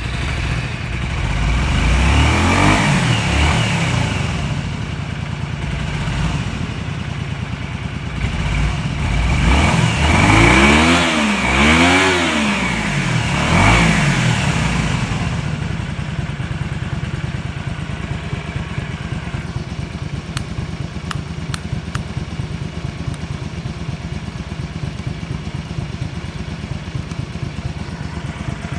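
Honda VT250 Spada's V-twin engine running just after starting: the throttle is blipped once early and three times in quick succession about ten seconds in, then it settles to a steady idle. It runs with no abnormal engine noise.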